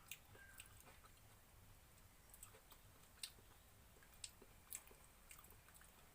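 Near silence with a few faint, short clicks scattered through it, the clearest about three, four and a quarter, and four and three-quarter seconds in.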